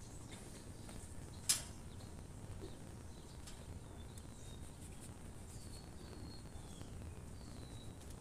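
Quiet outdoor ambience with a low steady rumble, a few faint, short bird chirps in the second half, and one sharp click about a second and a half in.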